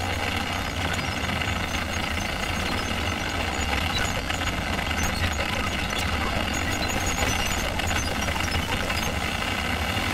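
Experimental electronic drone from a Ciat-Lonbarde Cocoquantus and a Korg Volca FM: a steady low hum under a dense, grainy wash, with scattered faint clicks.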